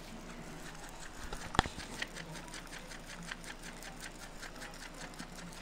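Lop-eared rabbit chewing fresh grass blades: quick, crisp crunches, about five a second. A single sharp click about a second and a half in stands out above them.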